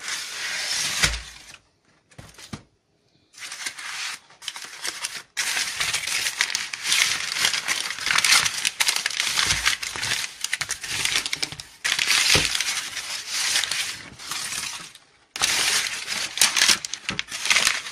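Kraft packing paper and plastic wrapping being crumpled and rustled by hand as a parcel is unpacked. The crinkling runs in long stretches, with a short pause about two seconds in and another near the end.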